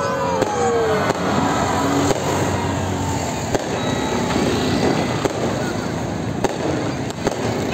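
Aerial fireworks going off: a constant din of many distant fireworks, with sharp bangs at irregular intervals, about one every second or so.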